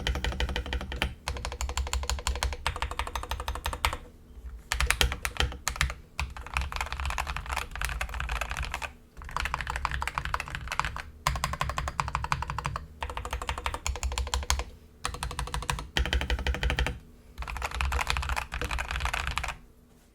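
Fast typing on an Akko 3098B Retro mechanical keyboard modded with case foam and a taped PCB, many keystrokes a second. It comes in runs of one to three seconds broken by brief pauses.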